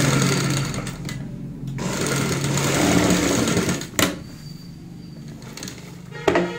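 Sewing machine stitching a seam in two runs with a brief pause about a second in, stopping about four seconds in with a sharp click. A few sharp clicks follow near the end.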